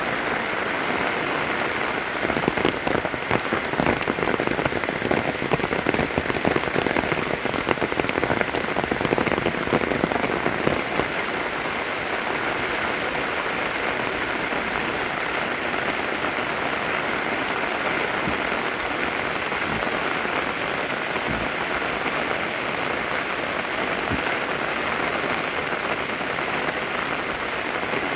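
Steady rain falling, a dense hiss with many small drop ticks; it comes down harder and more unevenly from about two seconds in until about eleven seconds, then settles back to a steady fall.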